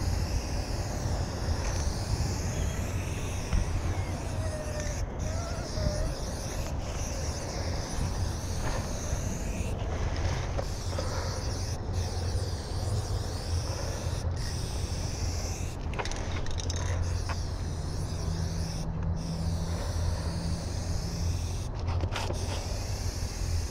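Aerosol spray-paint can hissing through its stock cap in long sprays broken by short pauses, over a steady low rumble of road traffic.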